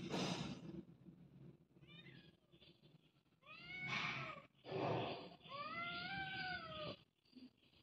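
Domestic cat meowing: a short faint chirp about two seconds in, then two drawn-out meows, each rising then falling in pitch, the second one the longer. A short noisy burst falls between the two meows.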